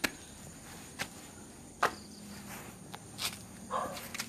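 Footsteps on concrete steps: a handful of sharp, irregular taps roughly a second apart, over a faint steady hum.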